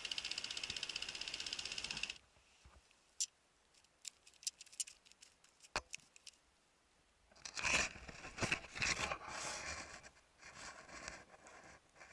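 A steady, fast-pulsing high buzz that cuts off suddenly about two seconds in. Then a mesh fishing keepnet holding caught fish is handled: a few sharp clicks, then rustling and scraping of the net, loudest about eight seconds in.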